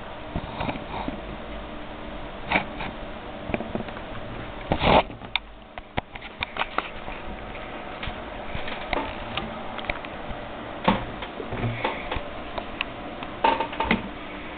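A steady hum in the compact camera's recording, with irregular clicks, scratches and rustles close to the microphone as a dwarf hamster crawls about at the camera. The loudest is a knock about five seconds in.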